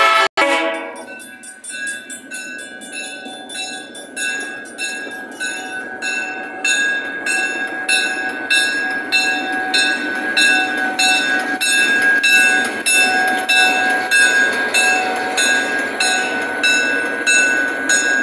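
Freight train rolling slowly past, with the last of a horn blast cut off right at the start. A bell then rings steadily, about two strokes a second, and grows louder from a few seconds in as the Ferrovalle diesel locomotive draws level.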